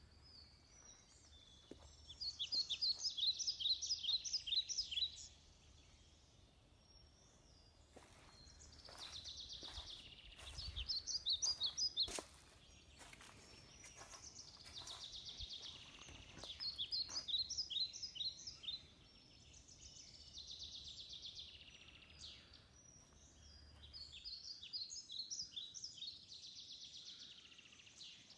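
A songbird singing the same short song five times, about every five to six seconds, each phrase a quick run of high notes.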